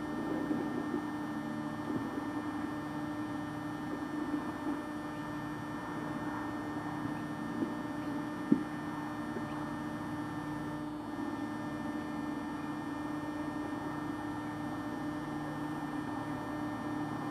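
A steady low hum, with one short sharp click about eight and a half seconds in.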